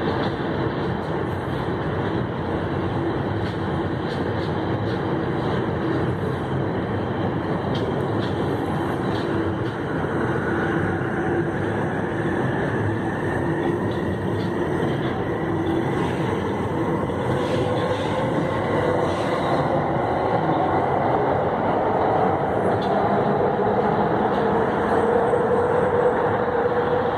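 Stainless-steel passenger cars of VIA Rail's The Canadian rolling past with a steady rumble of wheels on rail, growing a little louder near the end.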